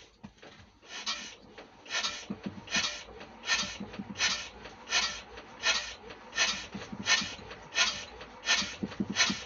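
Armstrong Siddeley diesel engine being turned over by hand to start it: a regular swishing noise with each turn, about one every 0.7 seconds, quickening slightly near the end.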